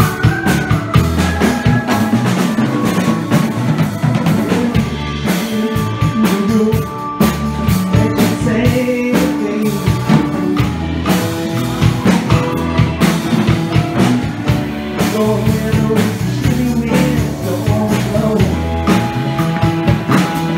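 Live rock band playing: drum kit and hand percussion over an electric bass line and keyboards, with a woman singing lead near the end.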